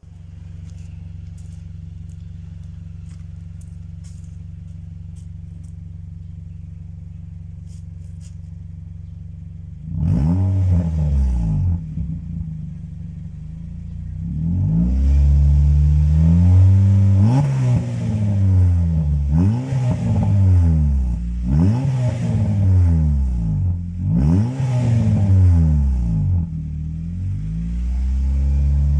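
Honda Mobilio's 1.5-litre four-cylinder engine heard through a JsRacing aftermarket muffler. It idles steadily, takes two quick blips about ten seconds in, then is revved over and over, about once every two and a half seconds, each rev rising and falling, before settling back to idle near the end.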